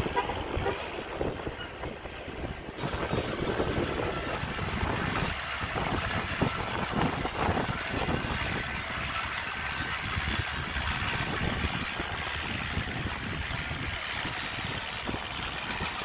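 Small crawler bulldozer working, its diesel engine running with a steady clatter of knocks as it pushes soil.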